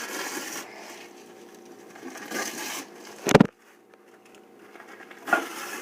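Paper coffee filter being torn and crinkled by hand, in two short spells of rustling. A single loud thump comes a little after three seconds in.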